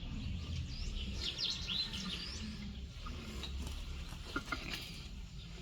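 Birds chirping in quick high runs, busiest about a second in, over a steady low rumble.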